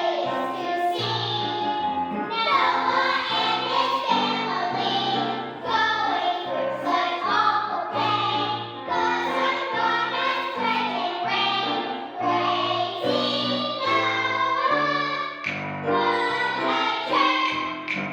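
A children's choir singing a song together over instrumental accompaniment.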